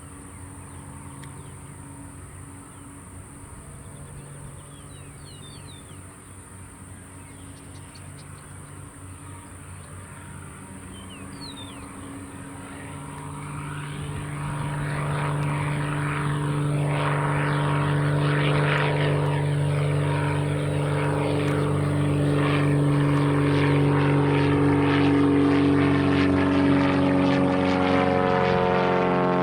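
Cessna 182 Skylane's single piston engine and propeller running steadily. It grows much louder about halfway through and then holds loud and steady, its pitch starting to shift near the end.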